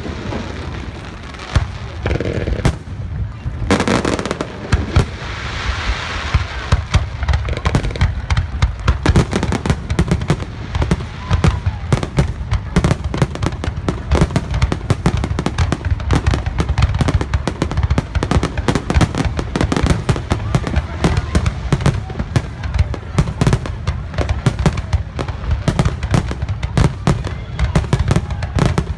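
Fireworks display: aerial shells booming and cracking in quick succession, the bursts coming thicker and near-continuous after the first several seconds.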